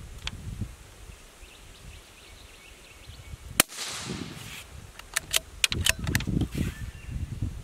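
A single shot from a CZ455 .22LR bolt-action rifle fitted with a muzzle brake, one sharp crack about three and a half seconds in, followed a second or so later by a quick run of metallic clicks as the bolt is worked for the next round.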